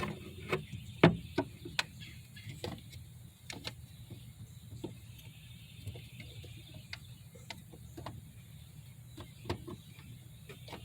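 Irregular clicks and light knocks of hands and a tool working at a hose connection in a car's engine bay, trying to get the hose off, the sharpest knock about a second in, over a steady low hum.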